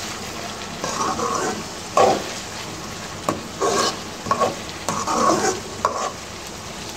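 Onions browning in hot oil in a pan, sizzling steadily, while a spoon stirs them with repeated scraping strokes about once a second and a few sharp knocks against the pan.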